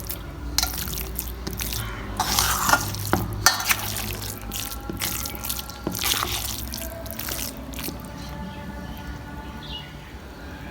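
Kitchen water dripping and splashing, with scattered light clinks and taps.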